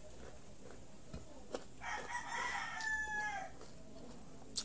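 A rooster crows once, a call about a second and a half long starting about two seconds in. Around it come the sharp crunches of raw carrot and cucumber being chewed, the loudest one near the end.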